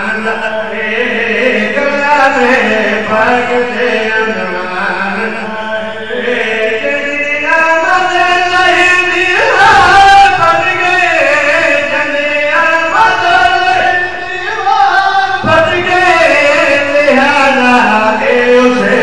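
Male voice chanting a qasida, a devotional mourning poem, as a continuous melodic recitation into a microphone.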